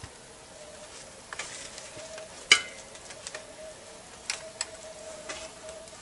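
Wood crackling and snapping in irregular sharp clicks, with one loud crack about two and a half seconds in, over a faint steady tone.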